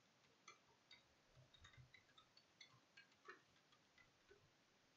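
Faint, irregular clicks of keys being typed on a computer keyboard.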